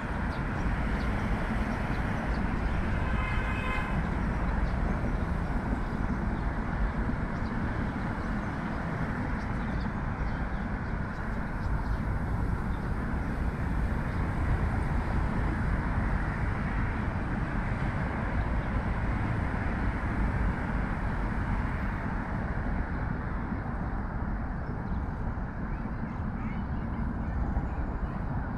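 Steady, continuous roar of heavy multi-lane road traffic, strongest in the low range. A short pitched sound rises above it about three seconds in.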